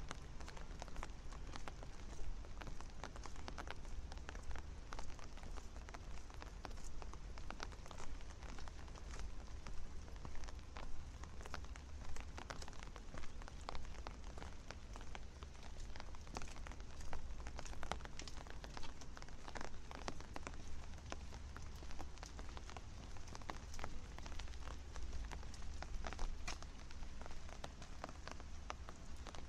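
Steady rain falling, with many close drops striking hard surfaces in a dense, irregular spatter.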